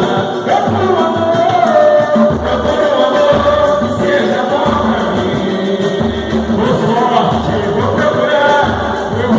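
Live samba group performing a song: voices singing over dense percussion with a regular low beat.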